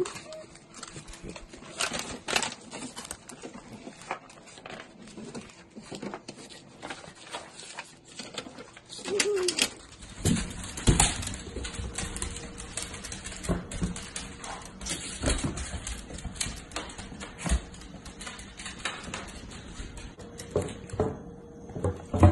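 Mini dachshunds and puppies whining, with many short clicks and taps of claws on a wooden floor.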